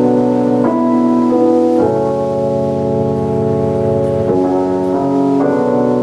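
Electronic keyboard playing held, organ-like chords that change every second or two, without drums or singing.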